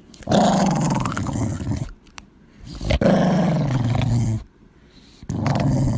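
Chihuahua growling in long, low grumbles: two of about a second and a half each, each sinking a little in pitch, with a third starting near the end.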